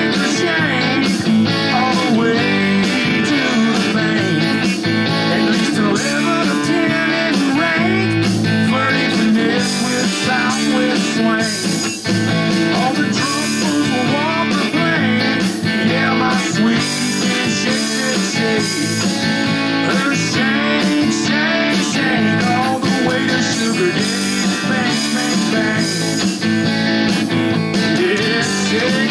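Instrumental stretch of a blues-rock song: a guitar plays lead lines full of bent notes over the band's steady backing.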